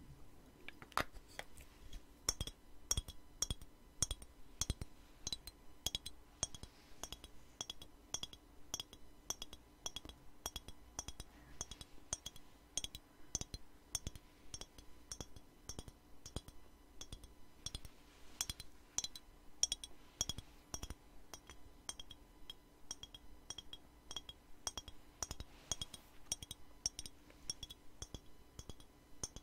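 Fingertips and nails tapping quickly on a square glass bottle: a dense, uneven run of light clinks, several a second, each with a faint glassy ring.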